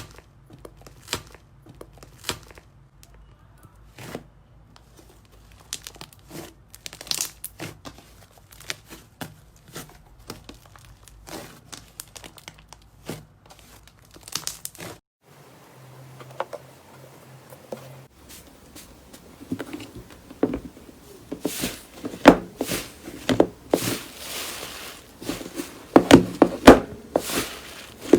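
Slime being handled and squeezed by hand, giving off scattered crackling pops and crinkles that grow denser and louder in the second half.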